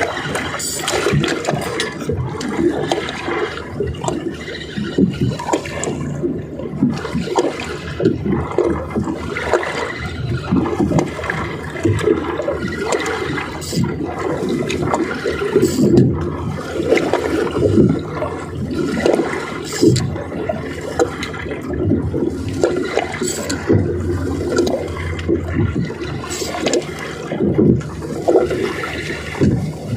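Water sloshing and splashing in continuous, irregular surges, like choppy harbour water slapping close to the microphone.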